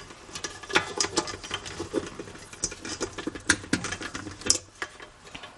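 Many small, irregular clicks and taps in quick succession, as of objects being handled; the stand mixer is not yet running.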